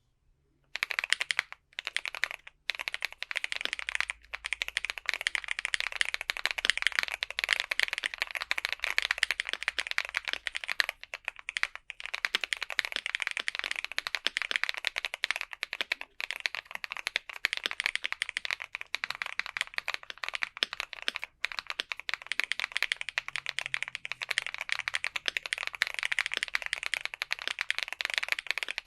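Continuous fast typing on a Keychron Q5 mechanical keyboard with lubed Akko Matcha Green switches on a polycarbonate plate, dampened with foam, tape and polyfill mods. The typing starts about a second in and runs on with only a few brief pauses.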